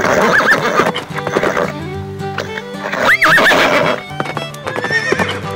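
Recorded horse neighing, in two loud wavering whinnies (about the first second, then again around three seconds in), over a steady background music track.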